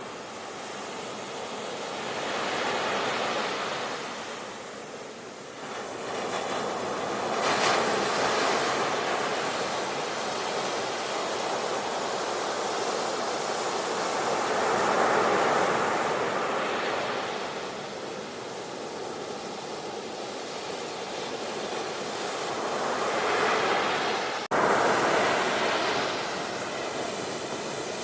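Sea waves breaking and washing in, rising and falling in repeated swells every few seconds. A brief dropout about three-quarters of the way through, after which the sound comes back suddenly louder.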